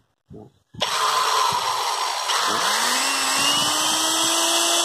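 Old Kosoku 100 V electric drill with a brushed motor switched on about a second in, spinning up with a rising whine and then running steadily at full speed.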